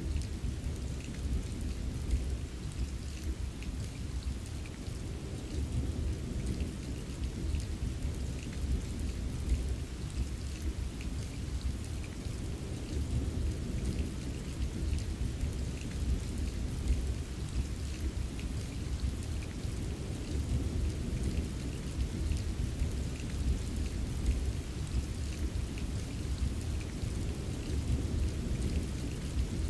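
Steady rain with a deep, continuous rumble of thunder underneath that swells and eases every few seconds, and scattered drops ticking on a surface.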